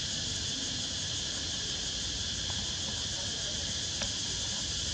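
Steady, high-pitched insect drone, unchanging throughout, with a faint click about four seconds in.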